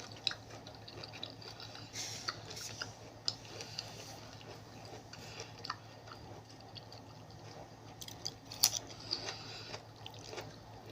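Close-up chewing and wet mouth sounds of someone eating spicy seafood papaya salad, with scattered small clicks and crackles and one sharper click about eight and a half seconds in.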